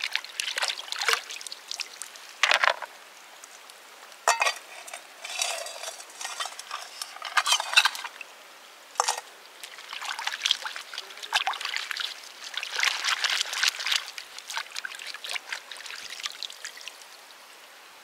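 Shallow lake water splashing and trickling in irregular bursts as hands wash a metal tray and then a pineapple, with a few sharper splashes.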